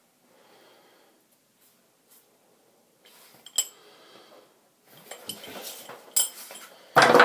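Quiet handling of carry gear: faint rustling, one sharp click about three and a half seconds in, and a few small clicks and clinks near the end.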